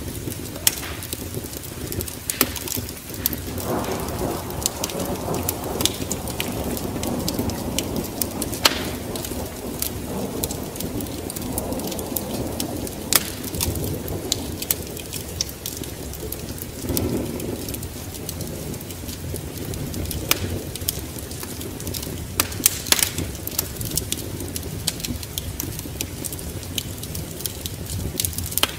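Wood fire crackling with frequent sharp pops, over rolling thunder that swells about four seconds in and dies away a few seconds before the midpoint, with a shorter rumble a little after the midpoint.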